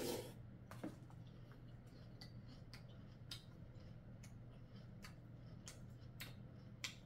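Faint scattered clicks and small mouth sounds of someone eating soggy, milk-soaked cereal: a spoon in a plastic container and chewing. Under them runs a low steady hum.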